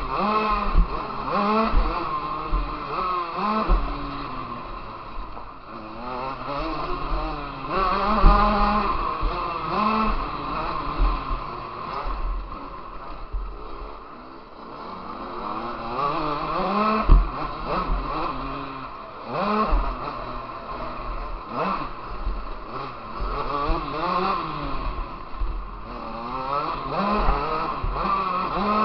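Motocross bike engine heard from onboard, revving up and falling back over and over with the throttle and gear changes as it rides round a dirt supercross track. A few sharp knocks break in, loudest about 17 seconds in.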